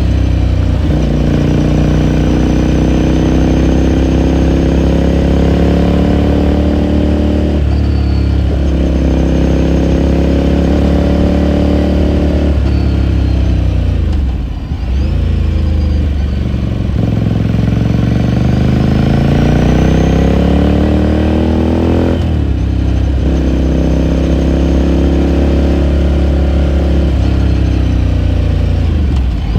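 2018 Ducati Scrambler Sixty2's air-cooled V-twin exhaust, heard from the rider's seat, pulling through the gears. Its pitch climbs and drops sharply with each gear change, eases off about halfway through, then rises again under acceleration.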